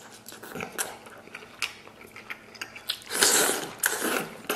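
Close-miked eating: wet chewing with many mouth clicks and smacks on braised pork offal. A loud slurp comes a little past three seconds in, and a shorter one about a second later, as a strip is sucked in from chopsticks.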